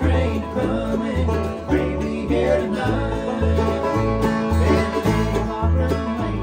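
Bluegrass band playing: five-string banjo, mandolin and acoustic guitar picking over an upright bass that plays a steady beat of about two notes a second.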